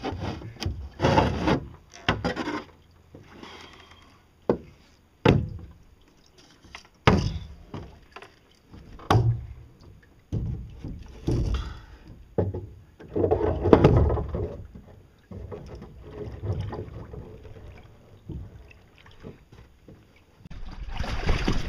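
Irregular knocks and thumps, with rustling and scraping between them, as a person climbs aboard a homemade pedal boat and grabs and shifts its pipes and metal frame.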